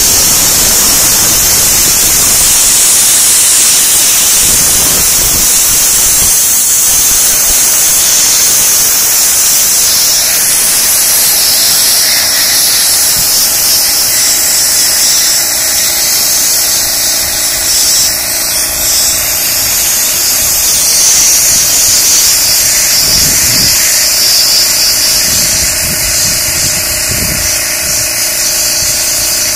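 Homemade sandblaster, an air gun drawing sand from a plastic bottle hopper, blasting a steady, loud hiss of compressed air and sand onto a Briggs & Stratton lawn mower engine block. An air compressor motor hums steadily underneath.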